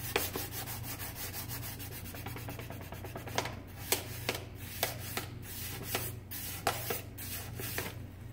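Sandpaper rubbed by hand over a knife handle, no sanding block: fast, even back-and-forth strokes that slow to separate, spaced strokes about three seconds in. A steady low hum runs underneath.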